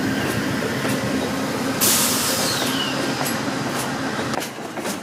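Amtrak Downeaster passing, the P42 Genesis diesel locomotive's engine running as its coaches roll by with clicks of wheels over rail joints. A loud hiss of air bursts out about two seconds in, and the sound drops away near the end.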